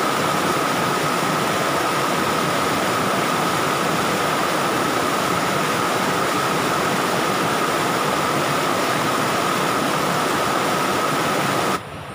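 Fast-flowing stream rushing over rocks, a steady loud rush of water that cuts off suddenly near the end.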